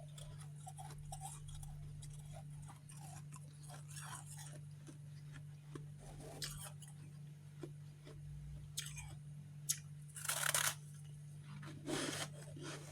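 Chewing and crunching chunks of refrozen freezer frost close to the microphone: a run of crisp crackles, with two louder crunching bites near the end.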